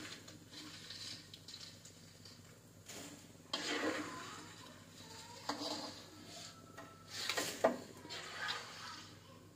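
Metal spatula stirring and scraping pieces of chicken around a wok of hot oil, with a few separate scrapes and clinks against the pan, the sharpest about seven and a half seconds in.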